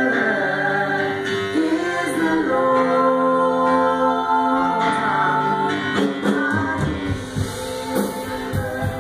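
Church worship music: singing with sustained notes over instruments, and drum hits joining about two-thirds of the way through.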